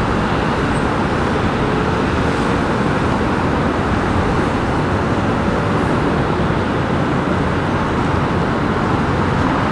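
Steady, unchanging rumble of road traffic and engine noise, with no distinct events.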